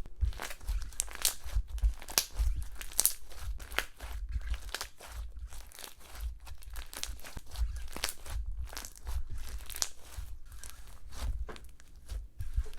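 Popcorn slime being squeezed and pressed by hand, giving a dense, irregular run of crackles and pops with soft squelching thuds beneath.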